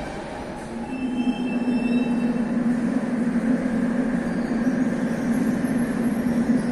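Metro train running on the line: a rumble that grows louder about a second in and settles into a steady hum, with thin high squealing tones for a second or so as it swells.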